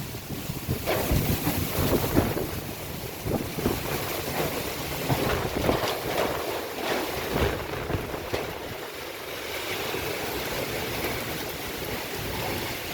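Strong gusty wind blowing hard and buffeting the microphone in irregular low thumps over a continuous rushing noise.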